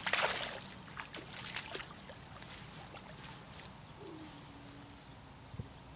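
A hooked black bass splashing and thrashing at the water's surface: one big splash at the start, then smaller splashes over the next few seconds that die away.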